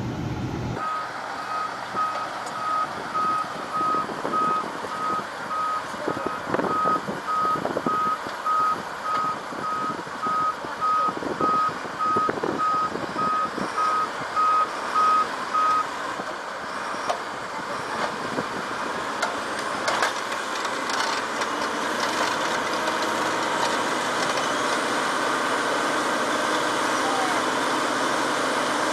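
A heavy vehicle's reversing alarm beeping at a single pitch, about two beeps a second, over the machine's running engine. The beeps stop about halfway through and the engine keeps running.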